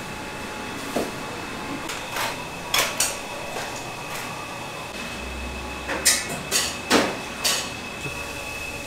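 Steady hum of a small restaurant kitchen with scattered sharp clatters and knocks of cookware, several of them close together near the end as a pan is taken up and handled.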